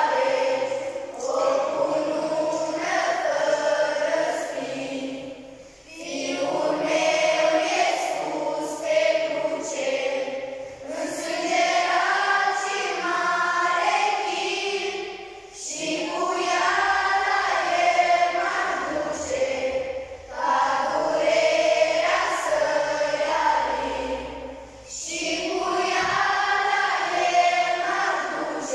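A group of children and teenagers singing together as a choir, in sung phrases about four to five seconds long with short breaks between them.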